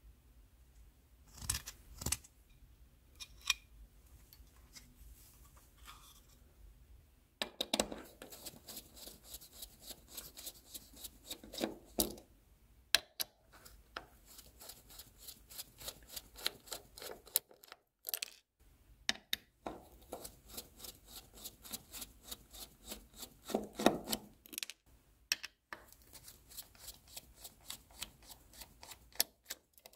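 Hand work on a graphics card during cleaning and disassembly: a few single clicks, then long runs of quick, evenly spaced clicking or scraping strokes, about three a second, with short pauses between the runs.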